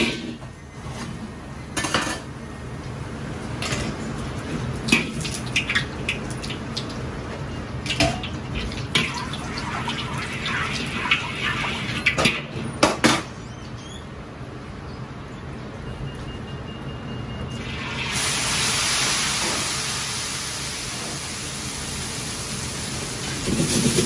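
Metal wok ladle knocking, clinking and scraping against a wok as oil is worked around it, a dozen or so sharp strikes over the first half. About three-quarters of the way in a steady hiss starts and holds, with a louder clatter at the very end.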